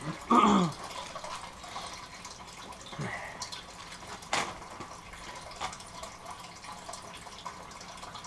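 A coiled audio extension cable being handled and unwound by hand, with faint rustles and a few light clicks over a steady background hiss. A loud, short whine falling steeply in pitch comes near the start.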